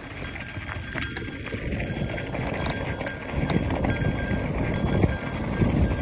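Mountain bike rolling along a dirt single-track: knobby tyres on dirt and small stones with a constant clattering rattle from the bike, over a low rumble.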